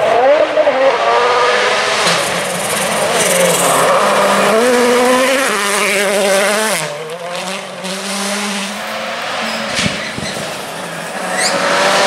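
Rally car engine revving hard at full throttle on a gravel stage, its pitch climbing and then dropping sharply at gear changes, with tyres sliding on loose gravel.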